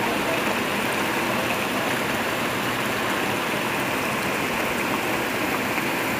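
Heavy rain pouring steadily onto banana leaves, vines and grass: a continuous, even hiss.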